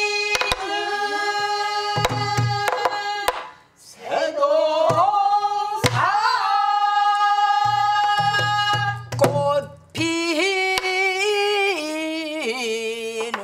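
A woman sings a slow Korean folk-style song in long held, wavering notes, accompanied by a buk barrel drum struck with a wooden stick. The singing breaks off briefly twice between phrases, and sharp drum strokes fall among the notes.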